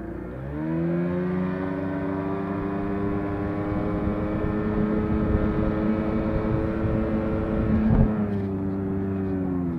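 1988 Johnson 28 hp two-stroke outboard motor revving up quickly from low speed about half a second in, then running steadily at high speed as the boat planes. A loud thump about 8 s in, and the revs ease off slightly afterwards and drop near the end.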